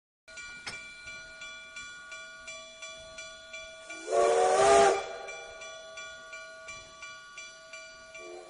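Hammer blows ringing on an anvil, about three a second, the blacksmith hammering iron. About four seconds in a steam whistle blows loudly for about a second with a hiss, and gives a short toot near the end.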